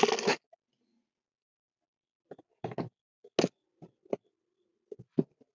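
Jeep Wrangler's plastic glove box bin knocking and clicking against the dashboard as it is pushed back into place: a handful of short, sharp knocks spread over a few seconds.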